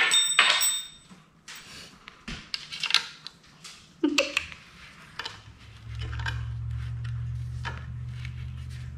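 Metal hardware and an Allen wrench clinking and tapping against the parts of a garment rack being assembled: a ringing clink at the start, then scattered small taps and clicks. A steady low hum comes in about six seconds in.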